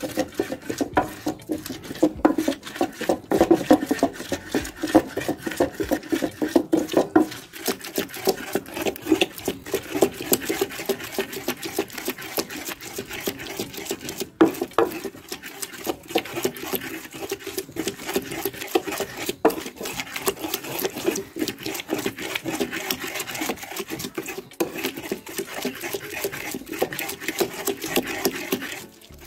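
Wooden pestle (tapoli) grinding onions against a grooved earthenware grinding bowl (asanka): a rapid, steady scraping and knocking of wood on clay.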